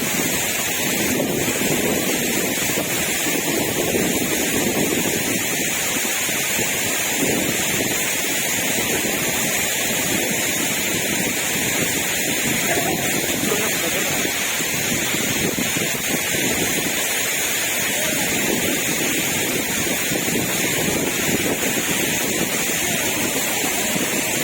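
Waterfall: the steady rush of falling water, even and unbroken.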